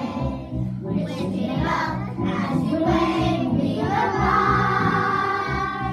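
A class of young primary schoolchildren singing a song together in unison, with notes held and changing steadily.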